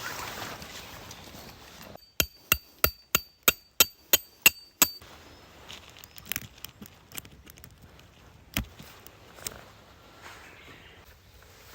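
A quick run of about nine sharp striking blows over three seconds, with a ringing tone under them, followed by scattered lighter knocks.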